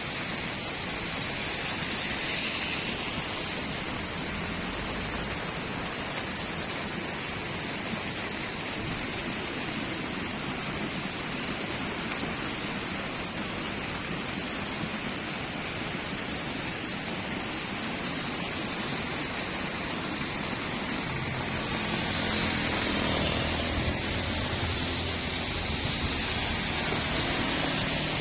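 Steady rain falling on a street, an even hiss of drops. From about two-thirds of the way in a louder swell with a low rumble builds and holds to the end: a motor vehicle on the wet road.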